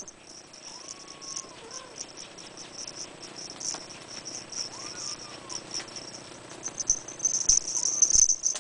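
Abyssinian kittens about five weeks old giving a few faint, short mews, three in all, over a steady high-pitched rattling that grows louder near the end.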